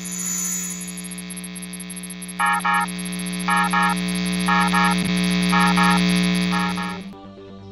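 Synthesized warning-alarm effect: a steady electronic drone swells while paired beeps repeat about once a second, beginning about two and a half seconds in. It fades out shortly before the end.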